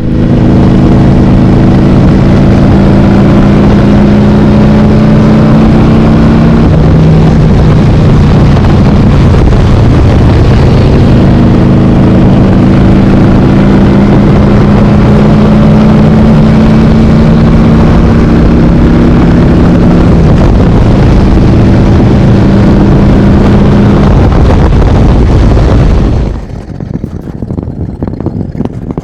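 Harley-Davidson motorcycle's V-twin engine running loud under way, its pitch holding steady and then shifting up or down several times. It drops off sharply about 26 seconds in.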